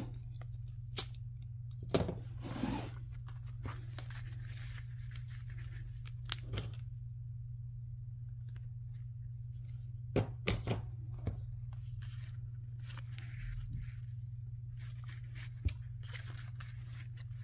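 Hands handling grosgrain ribbon and craft tools: scattered clicks, taps and ribbon rustling, a cluster of them about two seconds in and another about ten seconds in, over a steady low hum.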